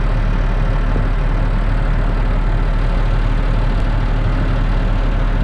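A heavy engine running at a steady idle, a continuous low drone with no change in pitch or level.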